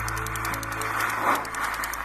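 Background music: held low notes and chords with quick, light ticking percussion.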